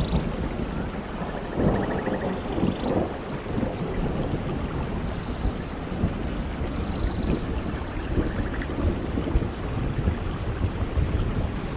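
Steady heavy rain falling, with low rumbling thunder swelling and fading underneath.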